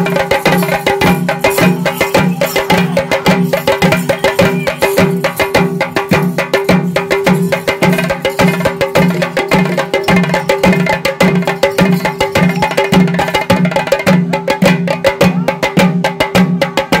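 Traditional festival percussion playing a fast, dense rhythm of drum strokes, with a deeper beat about twice a second and a steady held tone underneath.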